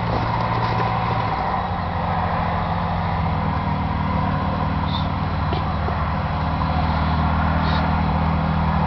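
Jabiru 3300 air-cooled flat-six engine of a Thorp T-211 idling steadily on the ground, heard from the cockpit, its pitch stepping slightly a couple of times.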